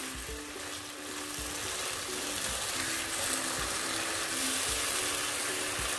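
Thick mustard-greens saag sizzling as it fries in butter in a nonstick pan, stirred with a wooden spatula, with a few soft knocks. The greens are cooked down and the butter is separating from them at the edges, the sign that the saag is done.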